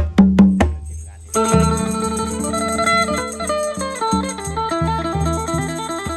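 Isan-style band music: a few heavy drum hits, then about a second in a fast plucked-string melody starts over a pulsing bass.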